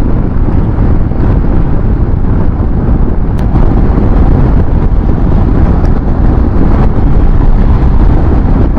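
Steady low rumble of a motorcycle ridden at highway speed, with wind rushing and buffeting on the microphone.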